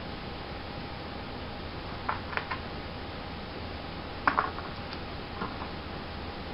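Light clicks and taps of a plastic tube and a roll of tape being handled: a few clicks about two seconds in, a louder cluster a little past four seconds, and one more weak click later, over a steady hiss with a faint hum.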